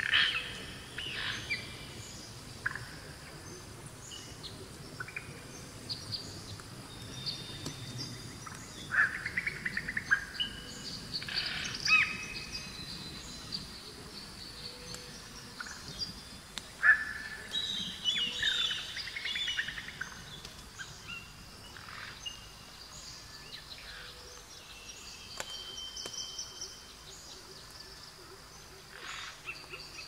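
Wild songbirds chirping and singing in many short, overlapping phrases, over the faint steady rush of a mountain river.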